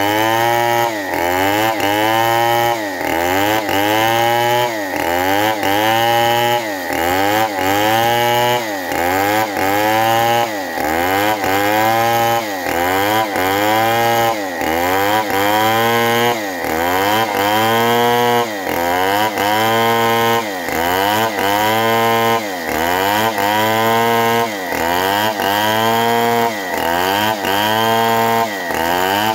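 Tecogold two-stroke petrol chainsaw ripping lengthwise through a waru (sea hibiscus) log. The engine runs loud and continuous, its pitch swelling and dropping about once a second as the saw works along the cut.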